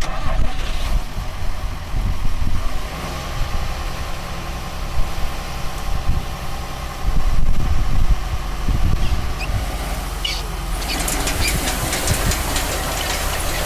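Farm machinery engine running steadily at peanut harvest. About ten seconds in, a louder rattling hiss with many small clicks joins it.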